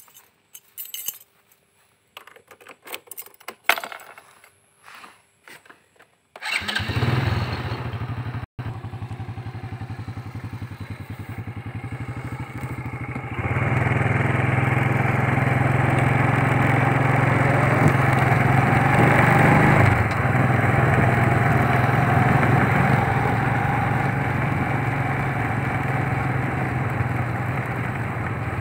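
A few footsteps and small clicks, then about six seconds in a motorcycle engine starts and runs steadily. About seven seconds later it gets louder as the motorcycle rides off along the road.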